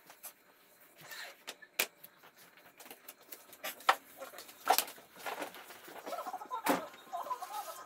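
Scattered sharp clicks and knocks as a person moves about a kitchen and handles things, with faint sound from a television coming in from about five seconds in.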